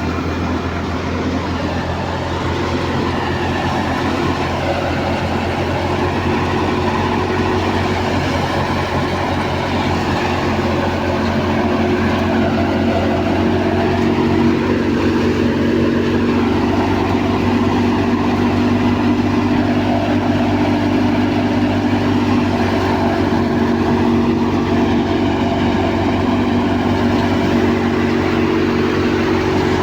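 Wheat-harvesting machine running steadily under load, its engine holding an even drone with a low hum and a mid-pitched whirr, growing slightly louder partway through.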